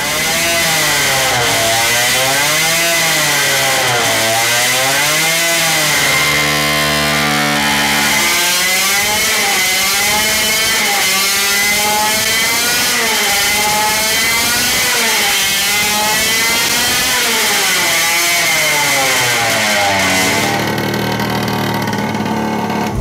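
Supercharged 50cc two-stroke engine running hard on a dyno, its speed surging up and down every couple of seconds, with a steady high whine underneath. This is the sign of a carb running rich with all its power jets open, with fuel still leaking from it. Near the end it changes to a steadier, lower hum.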